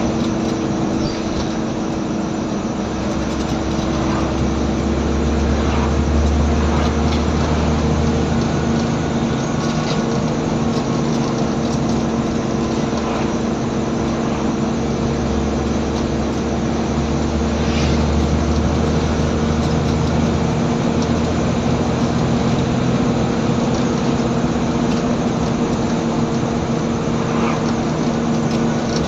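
Scania N94UB single-deck bus's engine running under way, heard from on board, with a steady drone over a deep rumble. The rumble swells twice as the bus pulls and then eases back.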